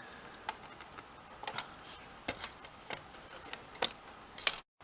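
Scattered light clicks and taps of hands handling the plastic and metal parts inside an opened PlayStation 4, about a dozen over a few seconds, the loudest near the end. The sound drops out completely for a moment just before the end.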